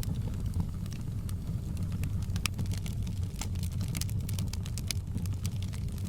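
Wood fire burning in a fireplace: a steady low rumble of the flames with frequent sharp crackles and pops, more of them in the second half.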